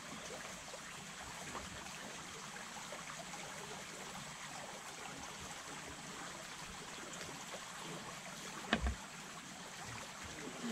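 Small creek flowing steadily, with a single knock near the end.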